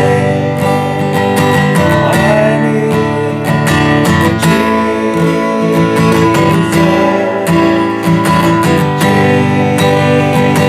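Music: an acoustic guitar strummed in a steady rhythm over sustained chords.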